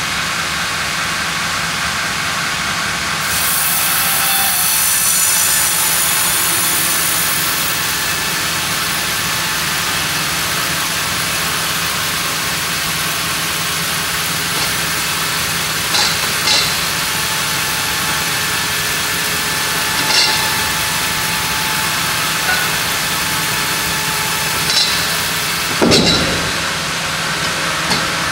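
Large log band saw running steadily and cutting through a monkeypod (rain tree) log, a continuous mechanical hum and hiss of blade and wood. A few sharp clicks come from about halfway in, with a heavier knock near the end.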